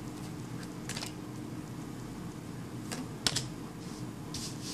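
Tarot cards being handled and drawn from the deck: a few light, sharp card clicks and flicks, in two small groups about a second in and around three seconds in, over a low room hum.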